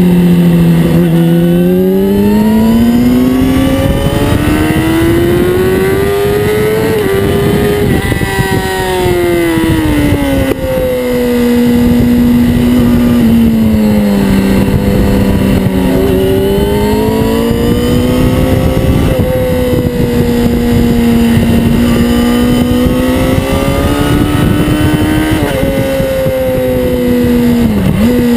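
Yamaha R6 inline-four sport bike engine at racing speed, heard from a camera on its tail with wind rush under it. The note climbs for several seconds under acceleration, falls back as the bike slows, and holds steady through long stretches. Near the end it dips sharply and picks straight back up.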